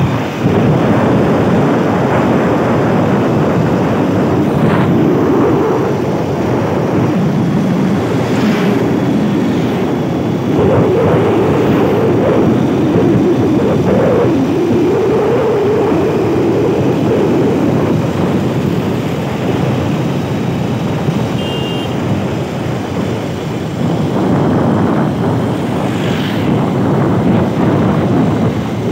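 A moving vehicle's steady rush of wind and road noise, with engine hum that rises and falls slightly.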